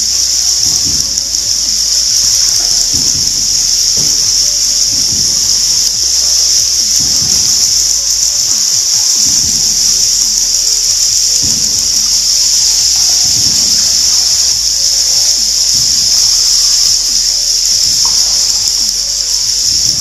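A steady, high-pitched hiss-like drone, with irregular low scuffs and bumps of a person crawling over cave rock.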